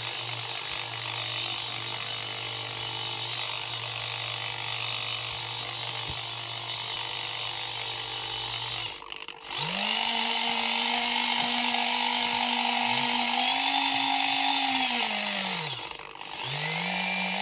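Electric motor turning the 3D-printed plastic worm gear and gear wheel of an InMoov robot's stomach rotation, running with a steady whir. About nine seconds in it stops briefly and spins back up with a rising whine, then near the end winds down with a falling pitch, stops and starts up again, running smoothly.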